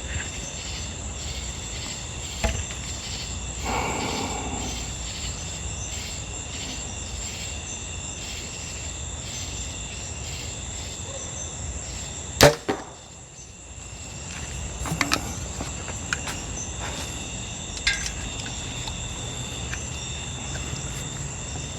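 Steady chirping of crickets or other insects, with a single compound bow shot about halfway through: a sharp snap as the string is released, then a second smaller smack a fraction of a second later as the arrow hits the target.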